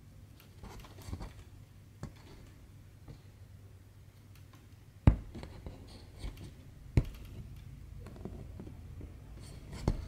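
Cross-stitching handling noise: soft scratching and rustling of silk thread drawn through fabric, with four sharp clicks, the loudest about halfway through, over a low steady hum.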